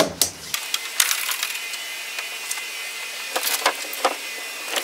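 A handful of sharp knocks and clicks of wood and hardware being handled and moved, spread across a few seconds.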